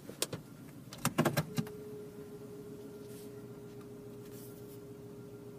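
Zafira A's 1.8-litre four-cylinder petrol engine idling, an idle the owner calls rough, with the engine warning light on. About a second in comes a quick run of clicks and knocks, and after it a steady thin tone holds.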